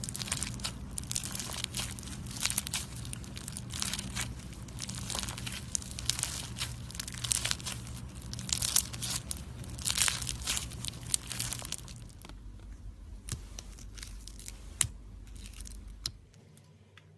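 Dense crackling and crinkling handling noise that thins to scattered clicks about twelve seconds in. A low steady hum runs underneath until near the end.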